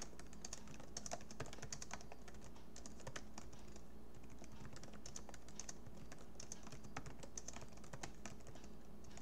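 Typing on a computer keyboard: quick, irregular keystroke clicks with a short lull near the middle, over a low steady hum.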